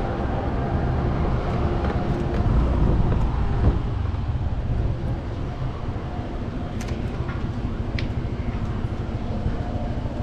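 Motorcycle engine running with road and wind noise while riding, with a single knock about three and a half seconds in.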